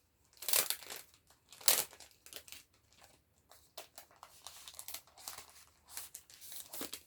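Paper and plastic packaging rustling and crinkling as kit items are handled by hand, in irregular strokes, loudest about half a second and again nearly two seconds in, then a run of smaller rustles.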